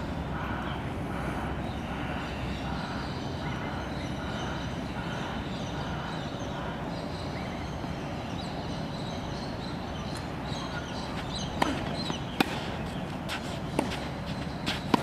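Steady outdoor background noise, then, in the last few seconds, several sharp knocks of a tennis ball being hit and bouncing on the hard court.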